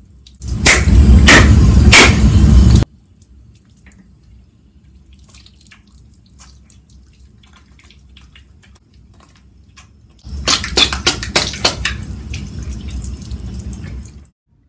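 Bathroom tap running into a sink while hands are lathered and rubbed under the stream, with splashing and drips. The water is loud for about two seconds near the start and again for about four seconds near the end, cutting in and out abruptly, with a faint trickle and small drips in between.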